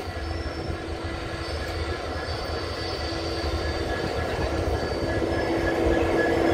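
WDP4D diesel locomotive's EMD two-stroke V16 engine humming steadily close alongside, growing louder as the coach draws level with it. Under it runs the rumble of the train on the track.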